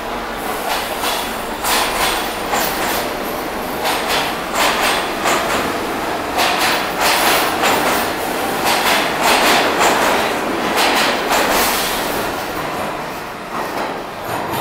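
R46 subway cars rolling past along the platform, wheels clacking over the rail joints in quick repeated pairs. The sound fades a little near the end.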